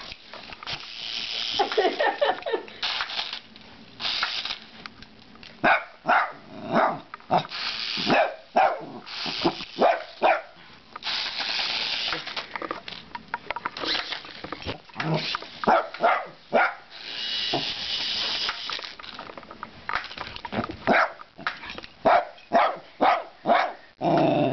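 A dog barking in many short, repeated barks. In three stretches of about two seconds each, a steady higher whir runs between the barks: the small RC helicopter's electric motor and rotor spinning.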